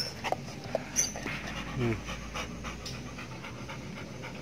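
A hunting dog panting close to the microphone, with short, irregular breaths.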